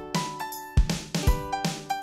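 Background music with a steady beat: a deep drum hit about twice a second under bright held notes.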